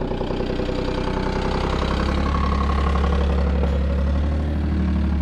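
Side-by-side utility vehicle's engine idling, a steady low drone.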